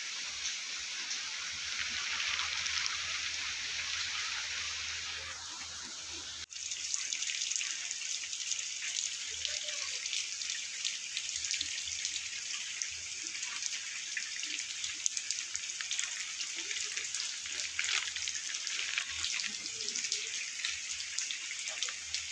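Rainwater leaking into a building, pouring and dripping in a dense, steady splashing hiss with many small drips. The sound breaks off sharply and resumes about six and a half seconds in.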